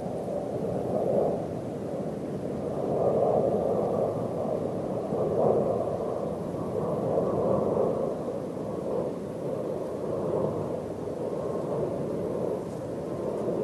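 Wind rushing over the microphone, a steady muffled rush that swells and eases every second or two.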